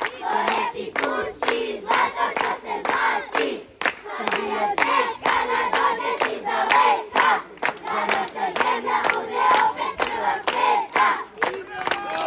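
A crowd of children chanting together in unison over steady rhythmic hand-clapping, about three claps a second.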